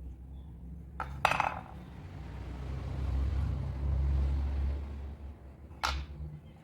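Hard objects being handled on a work surface: a pair of sharp clinks about a second in, the second ringing briefly, and another clink near the end, with a low handling rumble between them.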